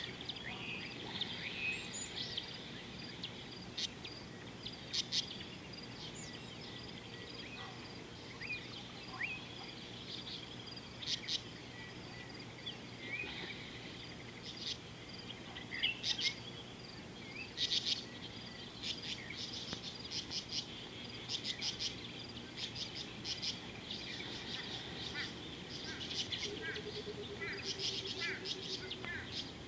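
Wild birds calling in the bush: many short chirps and quick repeated notes all through, busier in the second half, over a steady background hiss. A faint low tone slides slowly down near the end.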